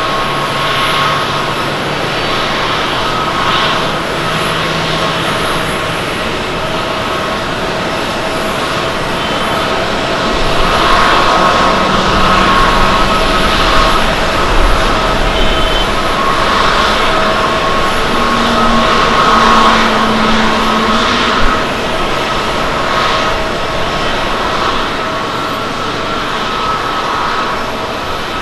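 Boeing 737-800's CFM56 jet engines whining through the landing rollout: a steady rumble with several held high tones. The noise swells for about ten seconds midway as the jet slows on the runway, then settles as it turns onto the taxiway.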